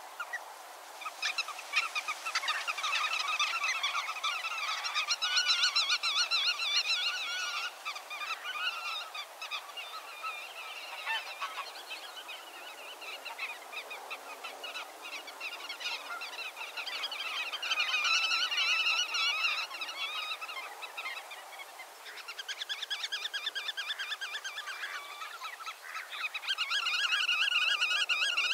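A flock of waterbirds calling in bouts of fast, repeated, honking calls, each bout a few seconds long, with short lulls between. The calls are loudest a few seconds in and again near the end.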